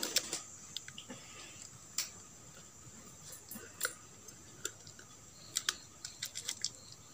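Scattered light clicks and ticks as a stack of thin round red circuit boards in plastic bubble wrap is handled, the boards' edges being thumbed apart to count them.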